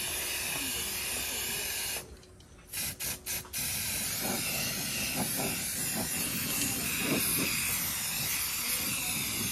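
Aerosol spray-paint can hissing as paint is sprayed onto a tractor wheel rim. The hiss stops about two seconds in, comes back as three short puffs, then runs on steadily.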